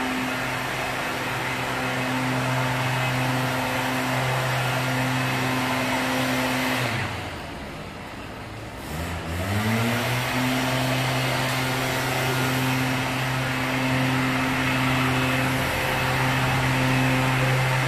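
Mantled howler monkeys roaring, a deep, continuous, droning chorus. About seven seconds in it falls off for a couple of seconds, then comes back rising in pitch and carries on steadily.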